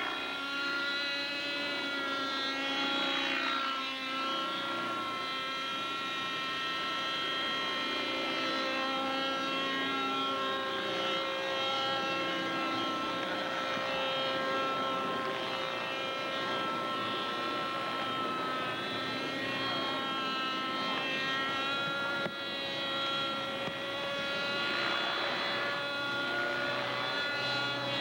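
Radio-controlled model helicopter's small engine running at high revs: a steady high-pitched whine with many even overtones, its pitch wavering slightly as the helicopter manoeuvres.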